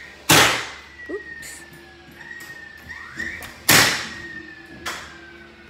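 Two loud bangs about three and a half seconds apart, each just after a short rising whine, with fainter knocks after each: a construction worker fastening a track to the floor along a taped line for a new wall.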